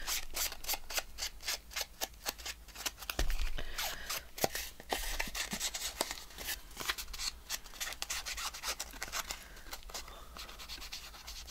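Ink blending tool rubbed in many quick, scratchy strokes along the edges of paper postcards, inking the edges to make them look aged.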